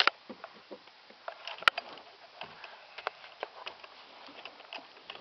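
Handling noise: irregular soft rustles and small clicks from a hand-held camera and hands moving over the car's seats and trim, with one sharp click about a second and a half in.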